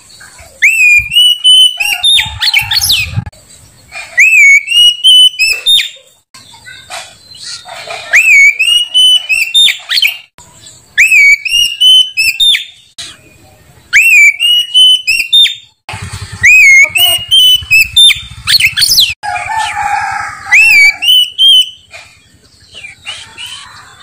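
Oriental magpie-robin (kacer) singing: loud, clear whistled phrases of rising and warbling notes, repeated about every three seconds with short pauses between.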